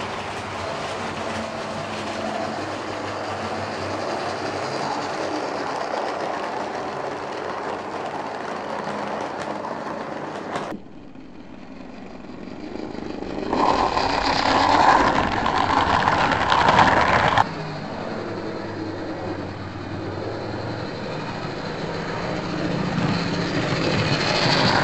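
H0-scale model trains running on a layout, with the hum of their electric motors and their wheels clattering over the rail joints. A louder passage lasts about four seconds midway and stops suddenly. Near the end a model railcar comes up close and grows steadily louder.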